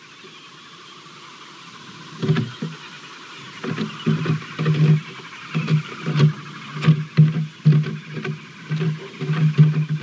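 Bearded woodpecker pecking at a wooden pole: irregular knocks, about two to three a second, starting about two seconds in and coming faster toward the end.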